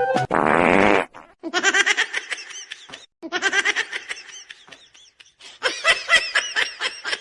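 A short raspy burst, then high-pitched laughter in three quick bouts of rapid 'ha-ha' syllables.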